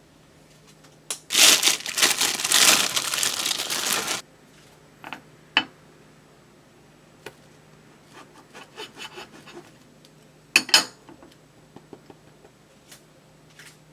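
Crinkling for about three seconds, then a few light clicks and knocks, and a second short crinkle near the end.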